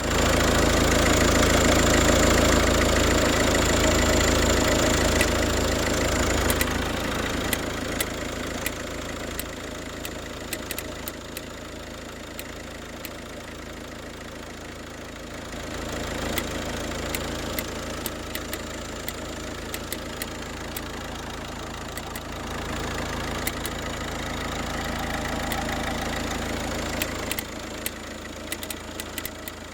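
Peugeot 308 1.6 HDi four-cylinder turbodiesel engine running at idle with an irregular ticking laid over it, a tick that almost sounds like a relay clicking. The engine sound is louder for the first six seconds, then rises and falls a couple of times.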